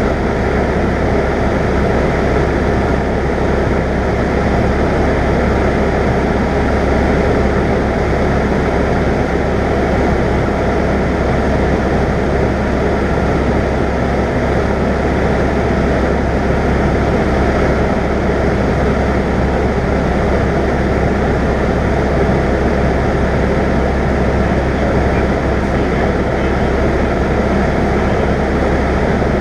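Cessna 172's piston engine and propeller running steadily in flight, heard from inside the cabin.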